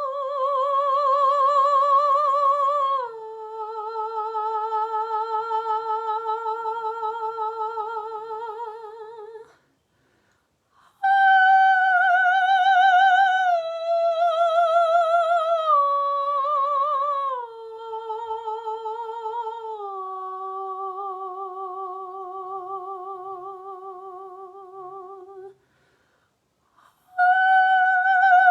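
A woman's solo voice singing long, wordless held notes with a wavering vibrato for sound healing. Two phrases each step down in pitch, with a short breath pause between them, and a third phrase starts near the end.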